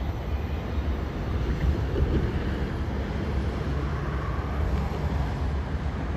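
Wind rumbling on the microphone over the fading rumble of a freight train's last cars rolling away down the track. The sound cuts off abruptly at the end.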